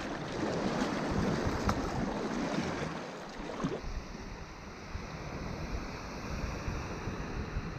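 Kayak paddle strokes splashing and water washing against the hull, then, after a cut about four seconds in, wind buffeting the microphone.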